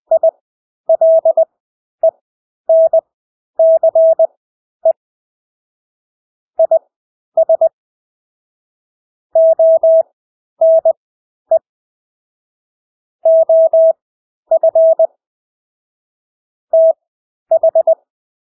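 Morse code (CW) practice audio: a single steady mid-pitched tone keyed in short and long beeps at 20 words per minute, with lengthened Farnsworth gaps between characters.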